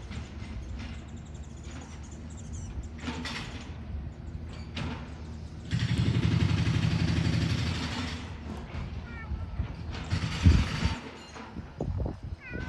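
Building construction noise: a steady mechanical rumble that grows much louder for about three seconds from six seconds in, with a sudden low thump about ten and a half seconds in. A few faint bird chirps sound near the end.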